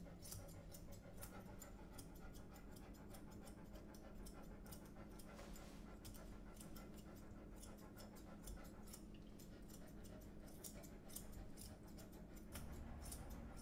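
Grooming scissors snipping the fur around a large dog's paw: a quick, uneven run of small clicks, faint against a low steady hum.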